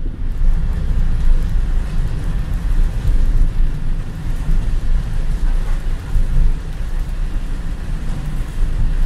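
Heavy rain falling on a car's roof and windscreen, heard inside the cabin, over the steady low rumble of the car driving on a wet road.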